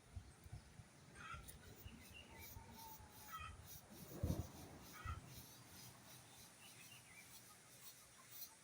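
Faint outdoor ambience with a few short bird chirps spread through, and one louder thump about four seconds in.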